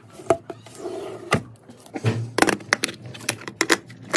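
Hands handling an Ajanta quartz wall clock's plastic case and battery compartment: a rapid, irregular series of sharp clicks and taps, thickest in the second half.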